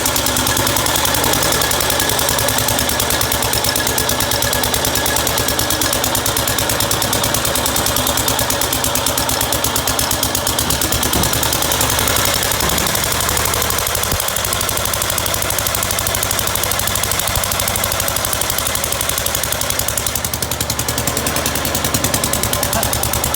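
Vintage walk-behind garden tractor engine running steadily with a rapid, even firing beat.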